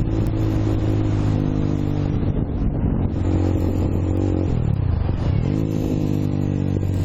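Motorcycle engine running steadily under way, its pitch dipping and then climbing again a little past halfway through.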